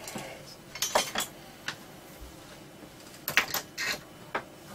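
Light metal clinks and taps of small hand tools being handled and set down on a workbench. They come in two short clusters, about a second in and again around three and a half seconds, with single ticks between.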